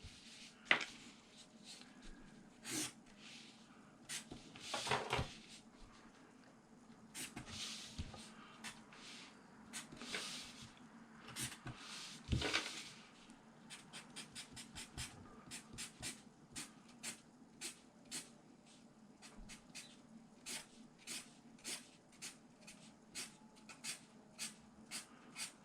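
Felt-tip marker strokes on paper while shading a shadow area: a few longer scratchy swishes, then quick short strokes at about two a second.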